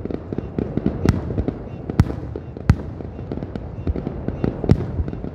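Aerial fireworks shells bursting, with a near-continuous patter of cracks and pops and four louder bangs, about one, two, two and a half, and four and a half seconds in.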